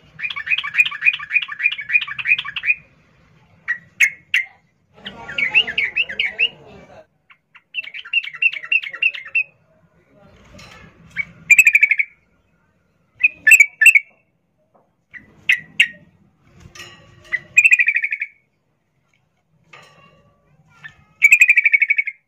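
Female yellow-vented bulbul (trucukan) giving its rapid chattering in-heat call, the 'ngerol' used to draw a male. It comes in repeated fast, stuttering bursts: a long run of about two and a half seconds at first, then shorter bursts with pauses between them.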